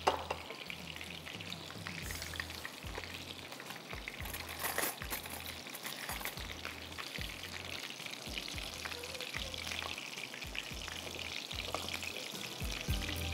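Faint, steady sizzle and crackle of food frying in hot oil.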